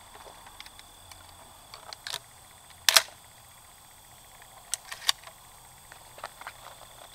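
A few short, sharp clicks and knocks over a faint outdoor background. The loudest comes about three seconds in, and smaller ones fall about two and five seconds in.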